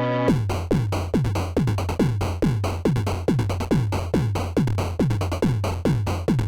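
Electronic music loop: a drum-machine kick with a falling pitch hits about two and a half times a second, with sharp clicks and a steady synth bass under it. It starts just after held synthesizer chords stop.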